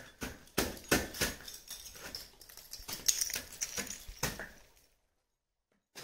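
A dozen or so irregular sharp strikes and knocks on ice, stopping about five seconds in.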